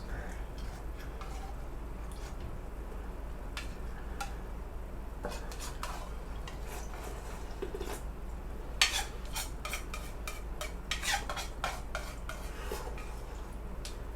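A spoon clinking and scraping against a bowl during eating. Scattered sharp clicks come more often from about nine seconds in, and the loudest one falls there.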